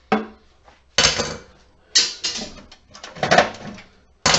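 A series of about five sharp knocks and scrapes, roughly one a second, as a glued-in gel-cell battery is pried loose inside a sheet-metal emergency lighting unit case.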